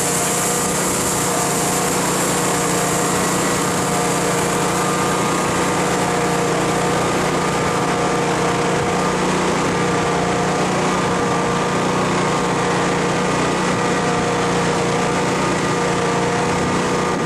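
A steady engine drone at one constant speed, with a fixed whine over it and no revving.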